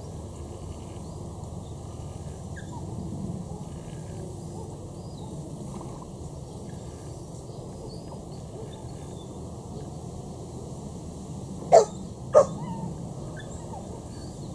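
Lakeside ambience: a steady low rumble with faint bird chirps. Near the end come two short, loud, sharp sounds about half a second apart, like a dog's barks.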